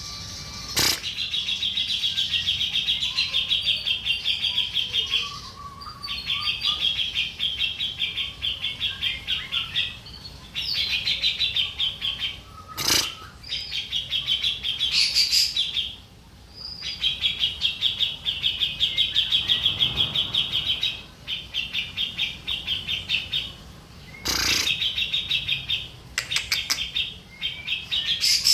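Grey-cheeked bulbul (cucak jenggot) singing: long runs of rapid, pulsing high chatter in phrases of a few seconds each, broken by short pauses. It is a master/lure song meant to train or provoke other songbirds. A few sharp clicks cut in.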